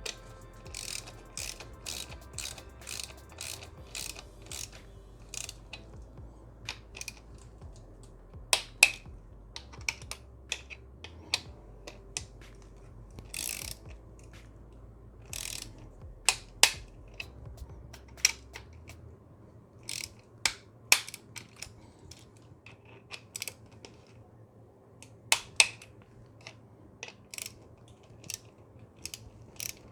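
Ratchet wrench clicking as the engine-guard mounting bolts are turned and tightened, a run of clicks about two a second at first, then scattered sharper metal clicks.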